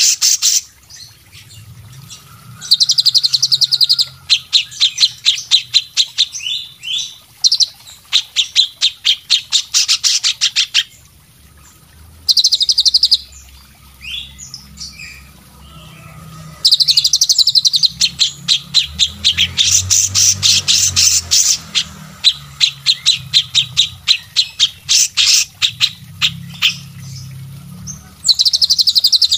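Cage songbirds singing in bursts of very rapid, high, chattering notes a second or two long, with scattered chirps between and a faint low hum beneath.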